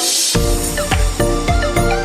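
Electronic background music: a swelling hiss cuts off about a third of a second in, and a deep bass and a steady beat come in with it.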